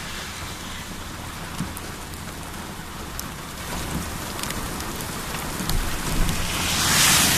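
Steady rain falling, with scattered sharp drop hits and a low rumble underneath. A loud hiss swells up near the end.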